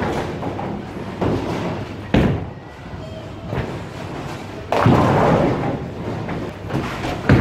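A bowling ball thuds onto the lane about two seconds in, then crashes into the pins a little before the five-second mark, the pins clattering for about half a second. Other sharp thuds of the alley come before and near the end.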